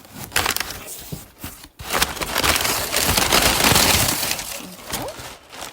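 Wrapping paper being pulled out of a cardboard box and crumpled, a few clicks and rustles at first, then a loud continuous crinkling for about three seconds.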